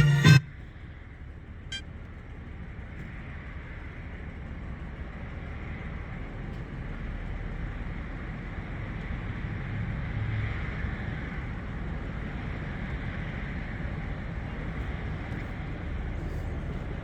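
Music cuts off at the very start. Then comes steady road and engine noise inside the cabin of a Toyota 4Runner on the move, a low rumble with tyre hiss that slowly grows louder and then holds level.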